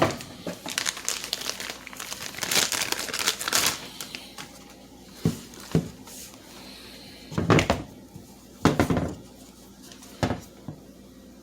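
Packaging crinkling and rustling as the battery ratchet is handled and unwrapped, then a handful of separate sharp knocks as it is moved about and set down.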